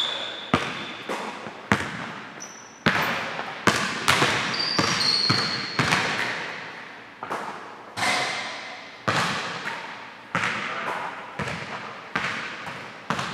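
Basketball bouncing and thudding on a hardwood gym floor in a steady shooting drill, sharp thuds at irregular intervals of about a second that ring on in the hall's echo. A few short, high squeaks cut in, one right at the start and two about five seconds in.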